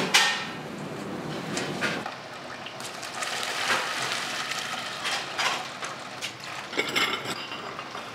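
Kitchen clatter of metal pots and utensils, a run of short clinks and knocks, with splashing and pouring liquid.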